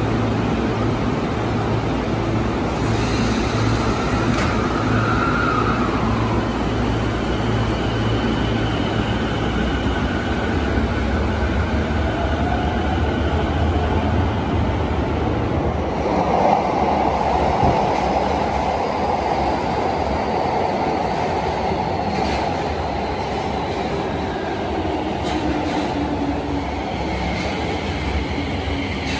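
Toei 10-300 series subway train pulling out of an underground station, its motors giving a rising whine over a steady low hum, then running off into the tunnel. In the second half another train comes in along the platform with wheel-on-rail rumble and motor tones falling in pitch as it brakes.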